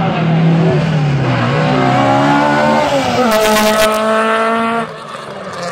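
Rally car engine accelerating hard as it approaches, its pitch climbing, falling back at a gear change about two and a half seconds in, then climbing again. A brief hiss comes as it draws near, and the sound drops off suddenly near the end.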